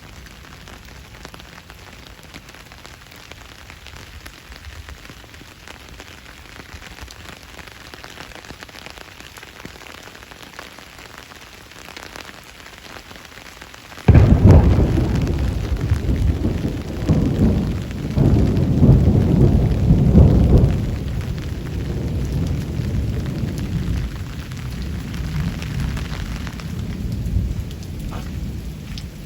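Steady heavy rain, then about halfway through a sudden loud thunderclap that rolls on as rumbling, swelling again twice and fading slowly over the next ten seconds or so while the rain keeps falling.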